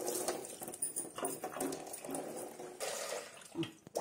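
Tap water running into a stainless-steel sink and splashing off hands and a steel bowl of cut jackfruit pieces being rinsed, in uneven splashy surges.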